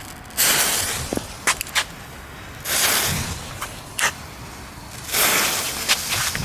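Three short hissing bursts about two and a half seconds apart, with a few sharp clicks in between, as the fuses of three Knetter King crackling fountain fireworks are lit one after another with a jet torch lighter. Near the end the first fountain is spraying sparks.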